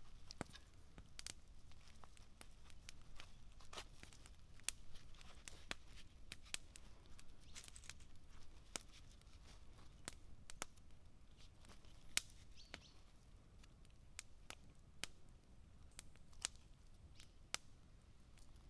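Faint handling sounds as a raw rack of lamb ribs is skewered on a sharpened wooden stick, the meat squishing and the cloth under it rustling, with many sharp irregular clicks throughout.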